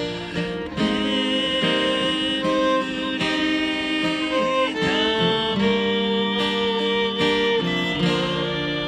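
Live acoustic music: acoustic guitars strummed under a violin playing held, bowed melody notes.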